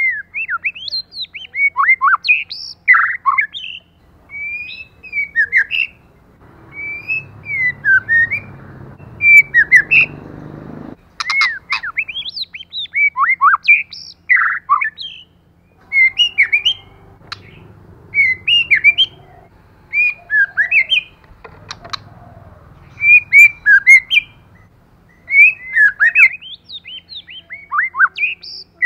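White-rumped shama singing: loud, rapid phrases of varied whistles, slurred notes and chirps, with short pauses between the phrases.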